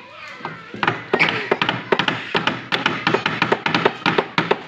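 Music with a quick, uneven run of sharp taps or knocks, several a second, starting about a second in.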